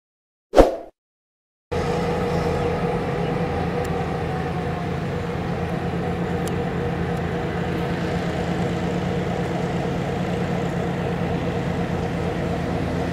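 A short, sharp sound effect about half a second in, then after a moment of silence a diesel locomotive engine running with a steady, even drone.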